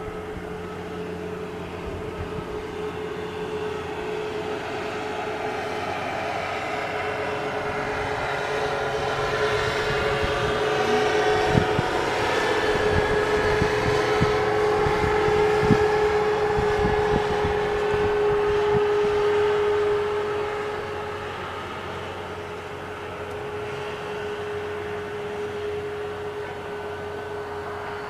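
Car engine held at steady revs while its tyres spin in deep snow, making a steady whine. The whine swells to its loudest in the middle and eases off after about twenty seconds.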